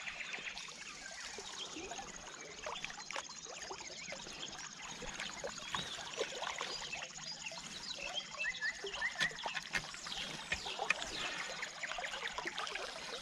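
Shallow river water trickling and lapping, with birds calling and the light clicking of a spinning reel being cranked.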